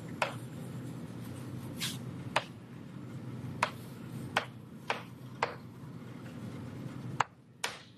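Writing on a lecture board: about nine short, sharp taps at irregular spacing over a steady low room hum.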